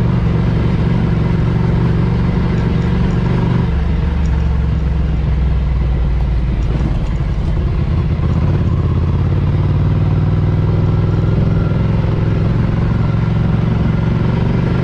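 Ducati Scrambler Cafe Racer's air-cooled L-twin running steadily as the bike is ridden. Its note drops lower about four seconds in and climbs again around eight or nine seconds.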